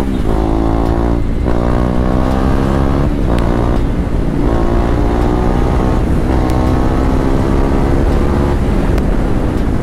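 KTM Duke 390's single-cylinder engine accelerating hard under a rider, revving up in pitch with brief breaks at several upshifts, heard from the rider's helmet mount.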